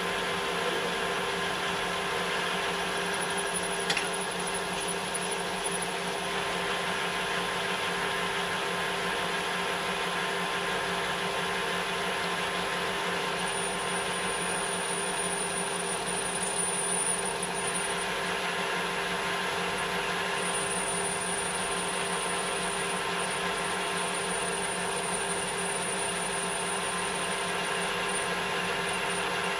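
Small metal lathe running at a steady speed while machining a small steam-engine piston, with a single click about four seconds in.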